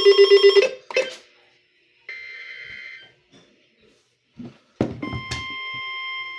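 Emergency weather alert audio. A rapid pulsing tone, about ten beats a second, stops less than a second in. A short buzzy data burst follows around two seconds in. From about five seconds in, a steady single-pitch alert tone sounds, typical of the NOAA Weather Radio 1050 Hz warning alarm that comes before a broadcast warning.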